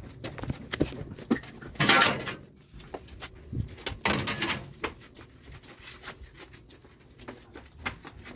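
Handling noises of stretch-wrapped furniture being moved: scattered knocks and plastic rustling, with two louder rustling bursts about two and four seconds in.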